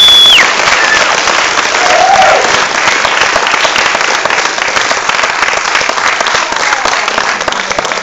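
Audience applauding steadily, a dense patter of many hands clapping. A high steady whistle rings over it and stops about half a second in.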